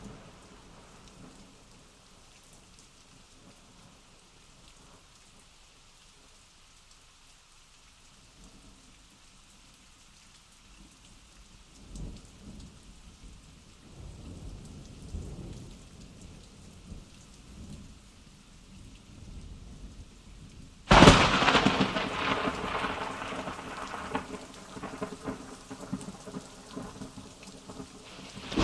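Thunderstorm: rain falling steadily, with low thunder rumbles coming in about halfway through. A sudden loud thunderclap about three quarters of the way through rolls on afterwards, and another crack comes right at the end.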